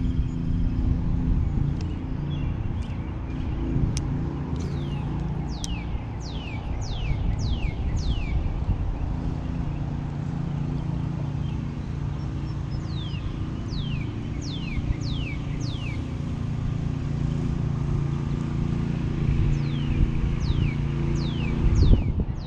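Steady low motor hum with wind rumbling on the microphone, while a bird sings short runs of quick down-slurred whistles, four to six notes at a time, repeated every few seconds.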